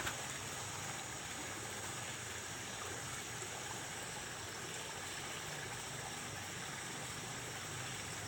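Steady, even hiss of outdoor background noise with a faint high steady whine over it, after a single sharp click at the very start.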